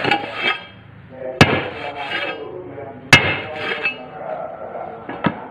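Sharp metal clanks as a round steel tamping plate is struck down onto a manual paving-block mould packed with sand-cement mix, two loud hits about a second and a half apart with a ringing after each, then a lighter knock near the end.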